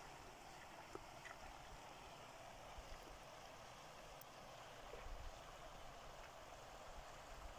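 Near silence: a faint, steady open-air hiss, with low wind rumble on the microphone now and then.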